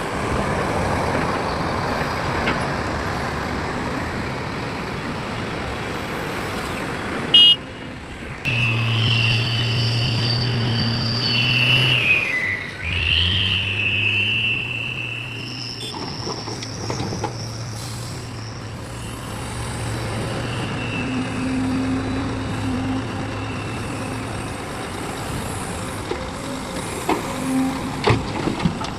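Heavy trucks running on a road, with road noise; about eight seconds in, a steady low engine drone with a high whine sets in, dips in pitch briefly, and fades out over the next fifteen seconds.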